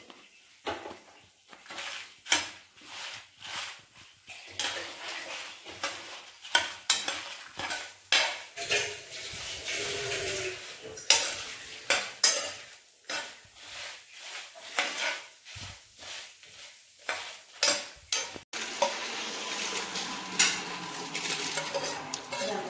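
A steel spoon stirring and scraping dried red chillies, coriander seeds and fenugreek as they roast in a nonstick frying pan: repeated scrapes and clinks of metal on the pan over a light sizzle.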